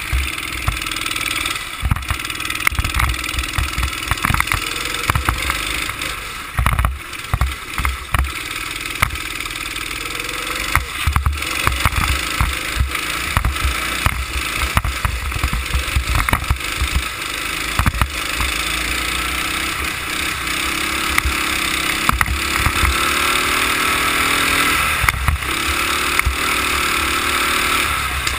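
Go-kart engine running at full race pace, its pitch rising and falling with the throttle through the corners, with heavy wind buffeting the onboard microphone in irregular low thumps.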